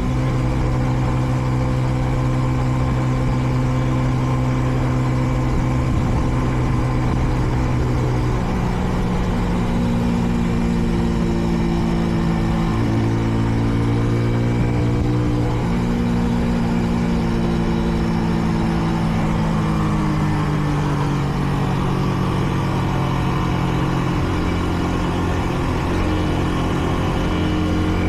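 Kreidler Dice CR 125's 125 cc single-cylinder engine running under way, with the engine note stepping up and down in pitch several times: up about eight seconds in, down near thirteen, up again near sixteen, then falling off gradually and rising again near the end. Behind it is a steady rush of air and road noise. The bike is in its running-in phase, held to moderate speed.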